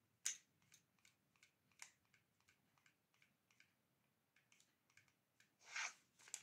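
Near silence with faint, scattered ticks and light crinkles from a paper sachet of baking powder being tipped and shaken over a bowl, with a short soft rustle near the end.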